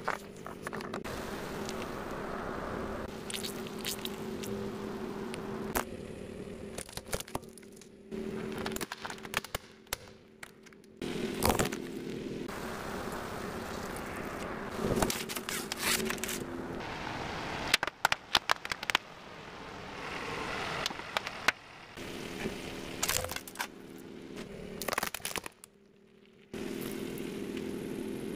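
A car tyre rolling slowly over toys and soft objects and crushing them, one after another: plastic bowling pins, soft moulded shapes, toy fruit. Repeated sharp cracks and crunches sound over a steady low hum from the car, and the sound changes suddenly several times.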